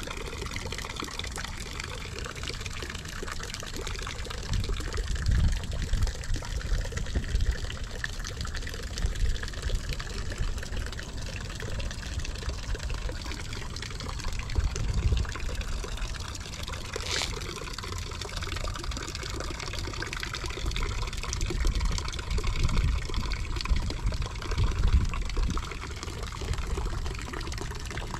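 Small garden fountain splashing steadily into a lily pond, with irregular low rumbles on the microphone.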